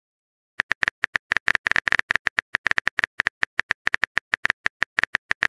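Phone-keyboard typing sound effect from a texting-story app: a rapid, slightly irregular run of short key clicks, starting about half a second in.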